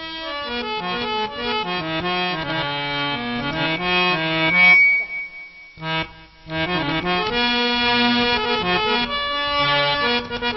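Harmonium playing a melodic introduction of held, changing reed notes. The playing breaks off briefly about halfway through, then resumes.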